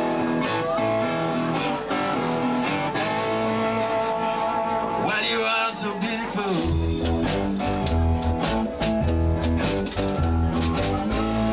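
Live blues played on cigar box guitars, with plucked and sustained string notes. A heavy low bass-and-drum beat comes in about two-thirds of the way through.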